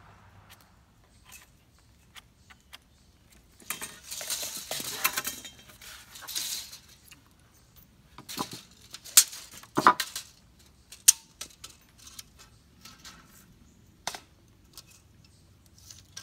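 Work noises as a board is measured with a steel tape measure: a few seconds of scraping and rustling, then a string of sharp metallic clicks and clinks.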